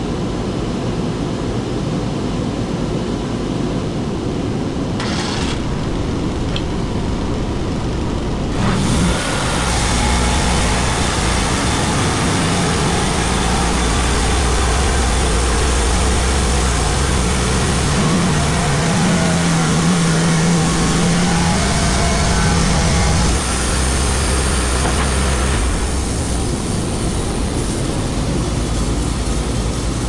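Wood-Mizer LT35 bandsaw mill's engine running. About nine seconds in it takes on load as the band blade cuts along a chestnut oak log, making the opening cut for a first flat face. The cut sound ends a few seconds before the end.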